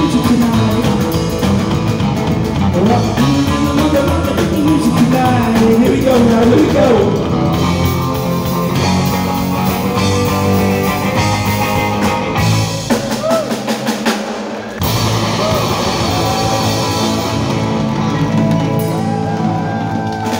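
Live rock and roll band playing electric guitar and drum kit, with a wavering lead melody line over the first several seconds. About thirteen seconds in, the low end drops out for a couple of seconds before the full band comes back in.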